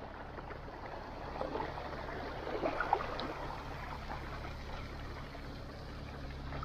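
Mountain bike tyres rolling through a shallow rocky stream: running water splashing and trickling around the wheels, over a steady low rumble.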